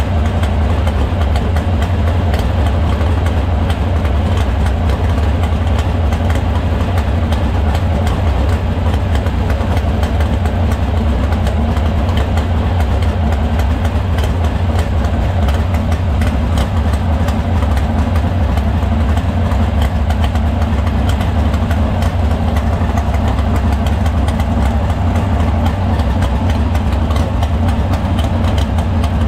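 Engine idling steadily, a deep even running with no revving.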